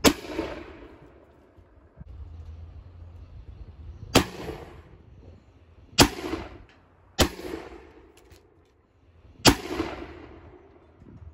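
Five black-powder shots from .69-calibre smoothbore muskets firing buck and ball, each a sharp crack with a short ringing tail, spaced unevenly over about ten seconds.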